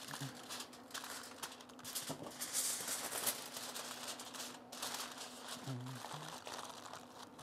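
Aluminium foil crinkling and crumpling as it is folded and pressed around a rack of ribs, an irregular run of rustles and crackles.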